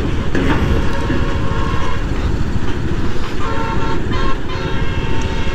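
Bajaj Pulsar NS200 single-cylinder motorcycle being ridden, engine running under steady road and wind noise, with a short horn toot about three and a half seconds in.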